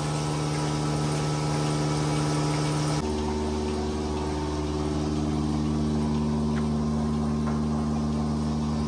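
Steady mechanical hum of a dairy milking machine's vacuum pump running. About three seconds in, its pitch and tone change abruptly.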